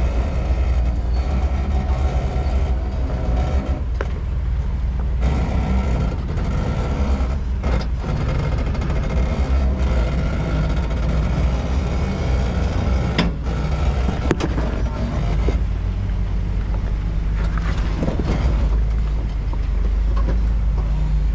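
Off-road vehicle engine running steadily with a deep rumble, with a few sharp knocks and clicks about two-thirds of the way through.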